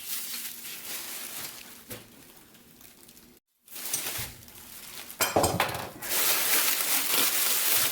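Greasy steel gun parts being handled, with scattered clinks and rattles of metal on metal. A brief dead-silent gap comes about three and a half seconds in, and the handling gets louder and busier near the end.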